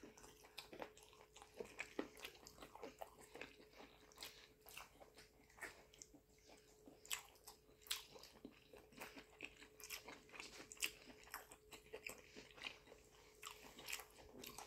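Quiet close-up chewing: a person eating fufu with vegetable soup and meat, with many small, irregular wet mouth clicks and smacks.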